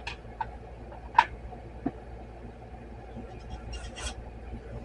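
A few light clicks and taps of small carburetor parts being handled by hand, the sharpest about a second in, with a brief scratchy rustle near the end, over a low steady hum.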